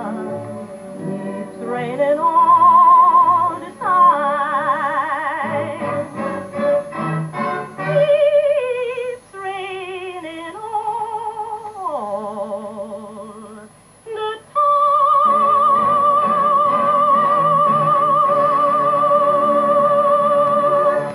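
Music: a woman singing with a wide vibrato over accompaniment, gliding between notes and ending on one long high note held for the last six seconds or so.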